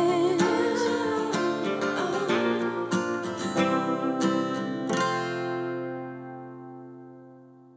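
Background music on acoustic guitar, plucked and strummed, ending on a final chord about five seconds in that rings on and fades out.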